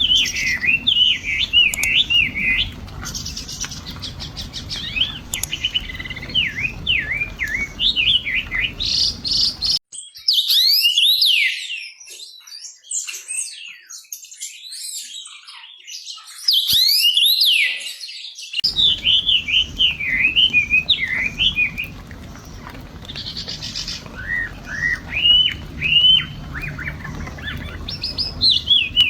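Birds chirping and twittering in quick runs of short notes. About ten seconds in, the sound cuts to a different recording of higher, sweeping calls with no background rumble, then cuts back about eight seconds later.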